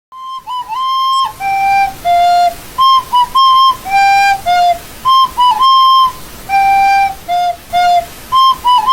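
Background music: a simple flute-like melody of clear single notes, one short phrase repeated about every three seconds.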